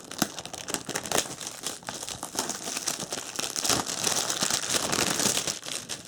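Plastic shrink wrap being torn and crumpled off a cardboard box, a dense crinkling and crackling that gets louder in the second half.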